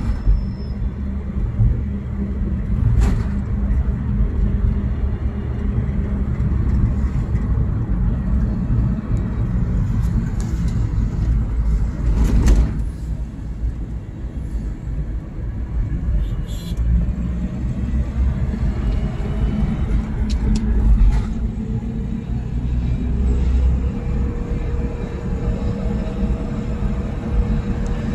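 Car engine and road noise heard from inside the moving vehicle's cabin: a steady low rumble, with a few brief knocks about 3 seconds in and again near the middle.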